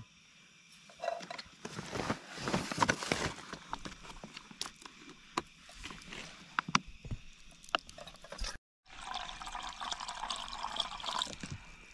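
Water poured from a plastic water container into a camping kettle, with clicks and knocks of the lid and container being handled. Near the end, a steadier pour splashes into the kettle.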